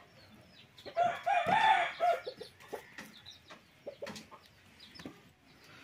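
A rooster crows once, about a second in, for roughly a second. A few faint clicks follow, from a curved boti blade slicing raw chicken.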